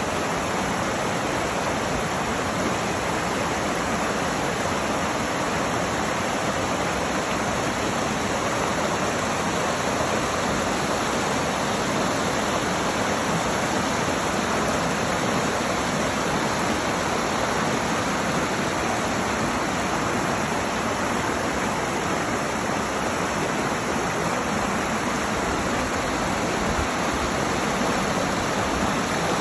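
Shallow rocky mountain creek rushing and splashing over boulders in small rapids: a steady, even water noise.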